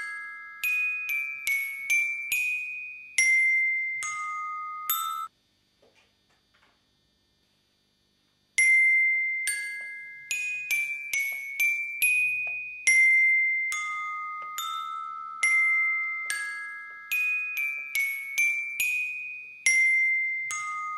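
A tinkling, glockenspiel-like melody of struck bell tones, each note ringing and dying away. The phrase breaks off about five seconds in, and after roughly three seconds of near silence it plays again.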